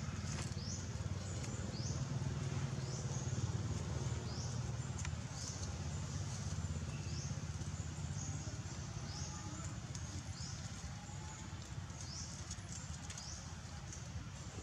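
Outdoor forest ambience: a high, short rising chirp from an unseen animal repeats over and over, under a second apart, over a steady low rumble.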